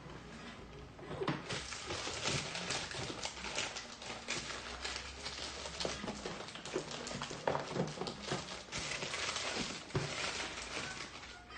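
Rustling with scattered light knocks and taps of objects being handled and moved about, as someone rummages for something.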